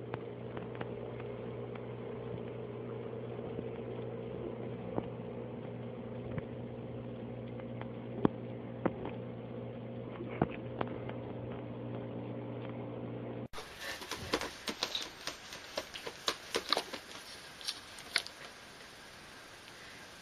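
A steady low hum with a few scattered light taps as a cat scampers on carpet; then, about two-thirds in, the recording changes abruptly and a quick irregular run of clicks and taps follows from a tabby cat's paws on a notebook.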